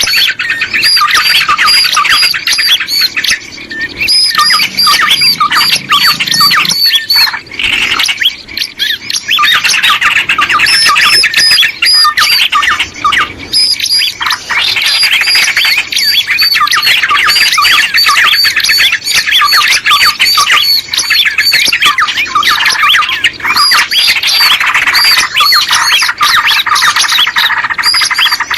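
Small birds chattering and squawking in a dense, rapid run of short high chirps, many notes a second with a few brief lulls. This is a lure call recording, played to attract small birds.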